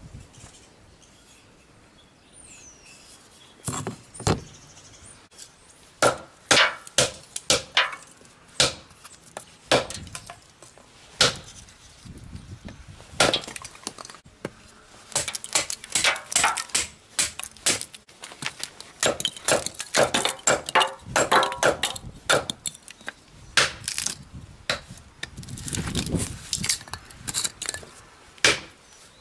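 A hatchet chopping and splitting small pieces of wood on a wooden chopping block: a run of sharp, irregular chops and knocks that starts about four seconds in, often several strikes in quick succession.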